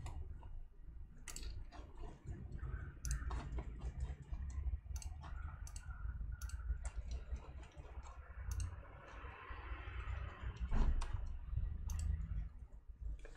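Irregular light plastic clicks from a laptop's trackpad and its buttons being pressed and handled, over a low steady hum.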